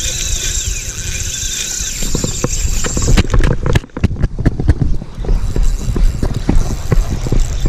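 A spinning reel whines with a fish on the line for about the first two seconds, then stops. After that come irregular knocks and rubbing of handling noise against the body-worn camera as the reel is worked, over a low wind rumble.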